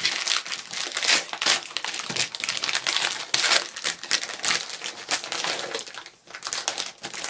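Packaging crinkling and crumpling as it is handled and opened by hand to unbox a mystery wand, a dense run of sharp crackles with a brief lull about six seconds in.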